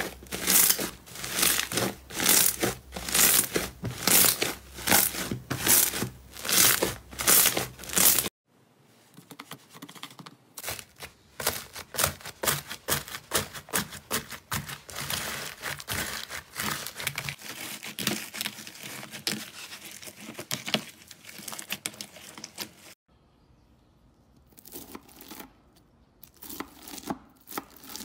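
Hands pressing and squeezing fluffy slime, each press giving a crackling pop of trapped air, about two a second. After a short break, hands kneading floam (slime packed with small foam beads) make a dense, continuous crackling, which thins to a few scattered crackles near the end.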